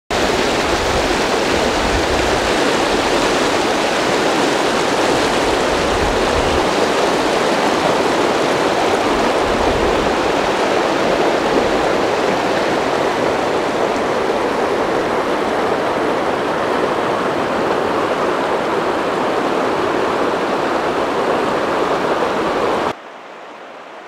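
Shallow river rushing over rocks, a steady loud rush of water that cuts off suddenly near the end.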